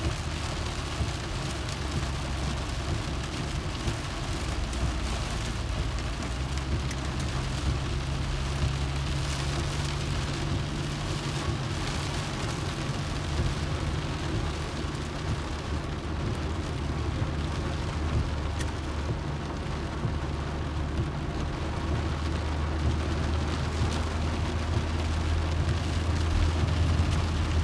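Rain falling on a moving car, over the steady low hum of the engine and tyres on a wet road, heard from inside the cabin.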